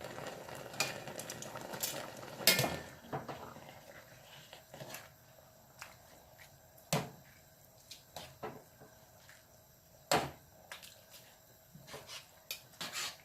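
Kitchen clatter of pots, pans and utensils being handled: a few seconds of rustling and scraping, then separate sharp knocks and clinks, the loudest about two and a half seconds in, with a run of small clicks near the end.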